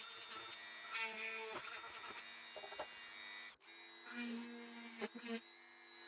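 Corded rotary tool running at a steady high speed, its bit cleaning out freshly drilled holes in a 3D-printed plastic boat hull: a steady motor whine. It breaks off for an instant about three and a half seconds in and comes back at a slightly different pitch.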